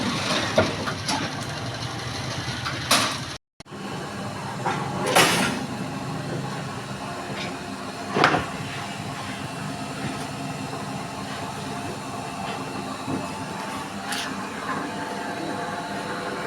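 Electric rebar bending machine running with a steady hum, with a few sharp metallic knocks as steel bars are bent into stirrups.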